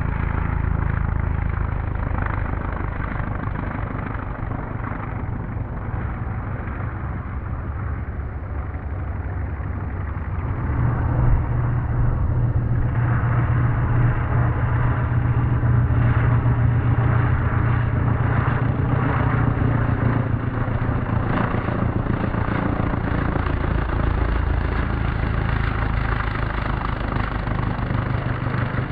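Engine of a large-scale radio-controlled biplane running steadily in flight, a continuous drone that grows louder about ten seconds in and holds there.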